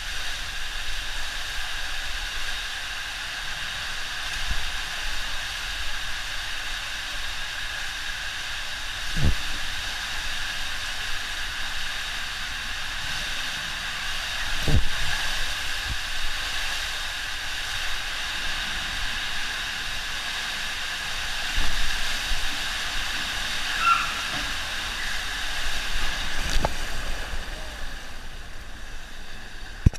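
Steady rush of flowing and splashing water, broken by a few dull thumps.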